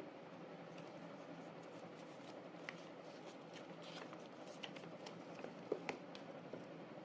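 A few scattered light clicks and taps from small objects being handled, over a steady background hiss, with the sharpest pair of clicks about three-quarters of the way through.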